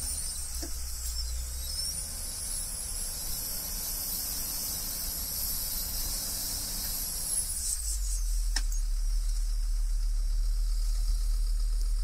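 Motor grader's diesel engine revving under load with a high whistling whine. The whine falls away about eight seconds in as the engine settles back to a low idle rumble.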